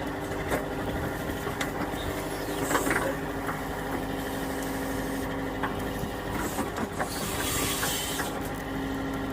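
John Deere 4052R compact tractor's three-cylinder diesel engine running steadily at about 1500 rpm, driving the 485A backhoe's hydraulics as it pulls out a small tree. Scattered clicks and knocks from the backhoe and the wood, with a brief hiss about three-quarters of the way through.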